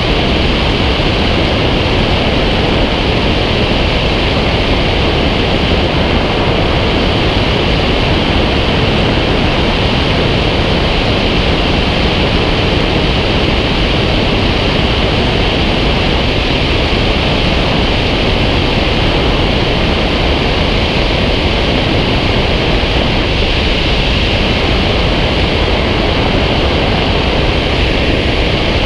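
Loud, steady rush of airflow over a wing-mounted camera on a FOX glider in flight.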